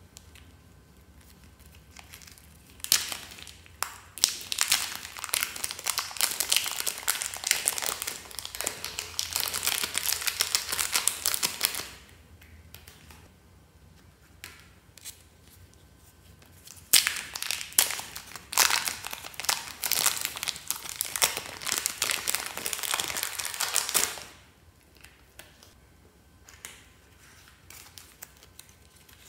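Slime being squished and kneaded by hand, giving dense crackling and crinkling pops in two long stretches of about nine and seven seconds, with a pause between.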